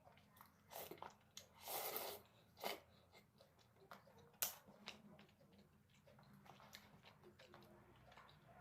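A person chewing and biting food, heard as a string of short wet mouth noises and clicks. The longest and loudest is a burst about two seconds in.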